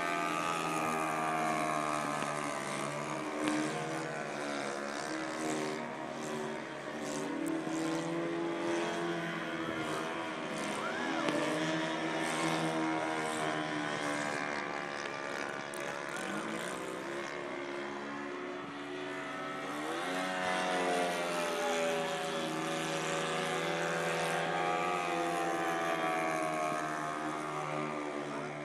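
Radio-controlled Gee Bee model airplane in flight, its engine and propeller droning steadily while the pitch rises and falls. The pitch dips about ten seconds in and climbs again about twenty seconds in.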